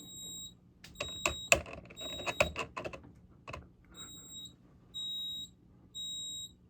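Fire alarm sounder beeping in a high, pure piezo tone, half-second beeps about a second apart: three in a row, a pause, then two more near the end. Sharp clicks and knocks of handling come through the first few seconds.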